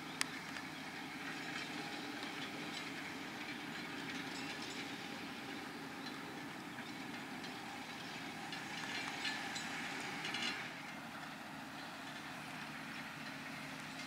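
Fendt 720 Vario tractor's six-cylinder diesel running steadily under load while pulling a Kuhn five-furrow plough through grassland, with clanks and rattles from the plough. A sharp click comes right at the start, and a louder burst of rattling about nine to ten seconds in.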